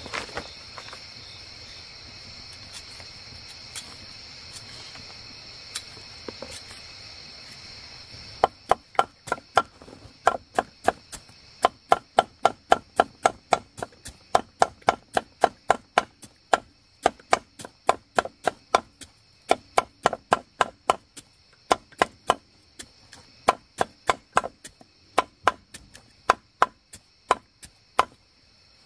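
Rapid chopping with a knife on a board, sharp even strokes at about three a second, starting about eight seconds in and keeping on to the end.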